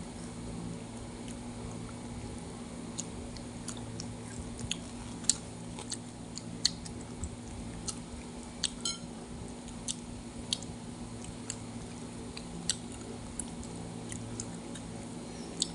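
Close-up chewing and biting of battered fried street food, with sharp crunchy clicks at roughly one a second. A steady low hum sits underneath.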